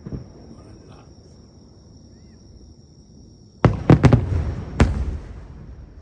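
Aerial firework shells bursting: one faint bang at the start, then after a pause of about three seconds a rapid volley of about five loud bangs, each with a rumbling echo that trails off.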